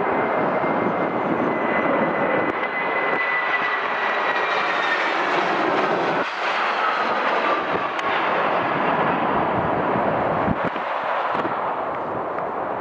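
Jet aircraft on a crosswind approach and landing passing by: a steady engine rush with a high whine that falls slowly in pitch.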